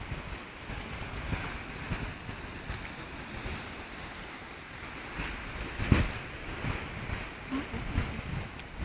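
Small sea waves washing against a rock breakwater, a steady hiss of water, with gusts of wind buffeting the microphone; the strongest gust comes about six seconds in.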